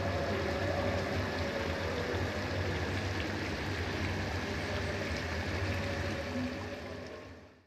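Chicken curry simmering in an iron karahi: a steady bubbling of the thick gravy, fading out near the end.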